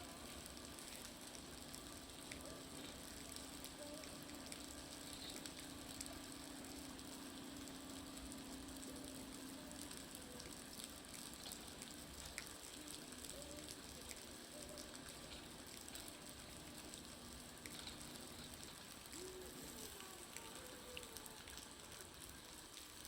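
Meltwater dripping and running off a building's roof: a steady patter of many small ticks that sounds like a crackling bonfire.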